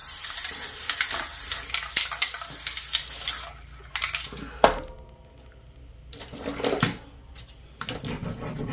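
Aerosol spray paint can spraying yellow paint onto paper, a long steady hiss that stops about three and a half seconds in. A sharp knock follows a second later, then quieter scraping and handling noises.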